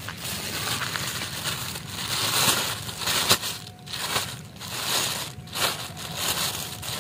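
Thin plastic carrier bag crinkling and rustling as it is untied and pulled open by hand, in several swells with one sharp crackle about three seconds in.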